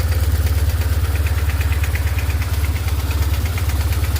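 BMW R1150GS boxer-twin engine idling hot, with a rapid, even ticking knock over the low engine rumble. The owner takes the knock to come from the valve lifters, not the cam chain tensioner.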